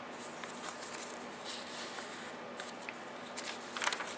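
Faint rustling and light ticks of paper and card being handled and turned in a journal, over a steady low hiss; the rustling grows busier near the end.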